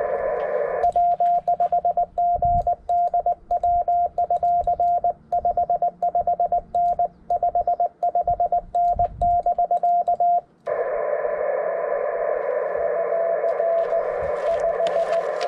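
Amateur radio transceiver sending Morse code (CW), its sidetone a single high beep keyed in rapid dits and dahs for about ten seconds while the receiver is muted. Then the receiver's band hiss comes back with a faint Morse signal answering in it.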